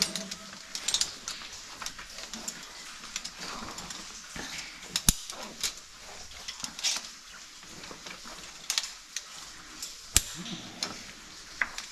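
Scattered small clicks and knocks of rappelling gear and rope being handled on rock, with two sharp clacks about five and ten seconds in.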